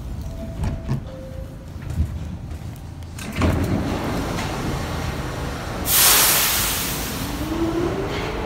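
New York City subway train rumbling through a station. About six seconds in there is a loud burst of air hiss, and near the end an electric motor whine rises in pitch as the train picks up speed.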